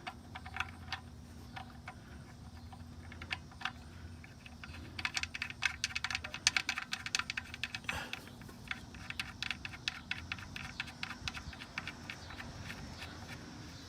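Ratchet wrench clicking in quick runs, densest from about five to eight seconds in, as the oil drain plug is run back in and tightened. A faint steady low hum lies underneath.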